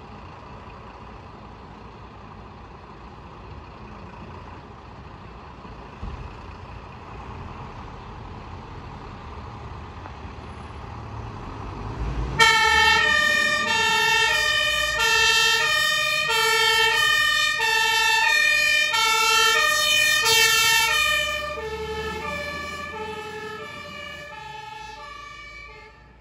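Low engine rumble, then about twelve seconds in a German fire engine's two-tone siren (Martinshorn) starts, alternating between a high and a low note, loud at first and fading away over the last few seconds.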